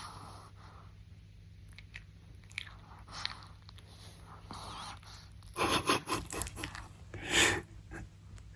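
Chihuahua snoring in its sleep: faint snuffling breaths, then louder rasping breaths in the second half.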